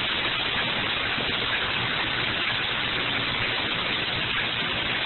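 Steady, loud hiss like static, with a faint low hum underneath and no change in level.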